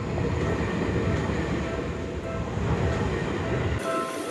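Seibu Ikebukuro Line train running over a level crossing, a heavy rumble of wheels on track, while the crossing bell rings its evenly repeating two-pitch ding faintly underneath. Near the end the rumble cuts off abruptly and the crossing bell carries on more clearly.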